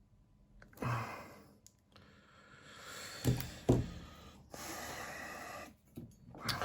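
A man breathing out heavily in several long sighs while working. Two sharp taps come about halfway through.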